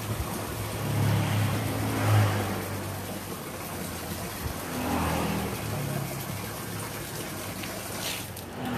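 A motor's low hum that swells louder twice, most strongly about two seconds in, over a steady hiss.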